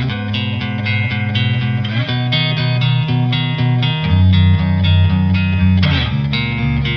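Background music: a steady run of plucked, pitched notes with a bass line underneath.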